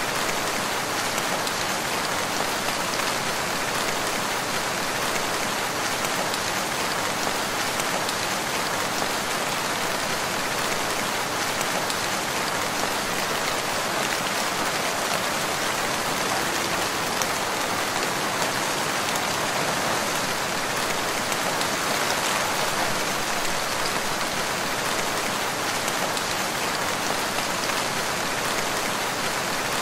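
Steady rain falling in a forest, an even hiss of rain with no let-up.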